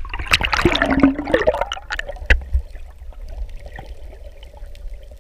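Seawater splashing and bubbling as the camera goes from the surface under the waves, loud for about the first two seconds. Then a quieter underwater hiss with a faint steady hum.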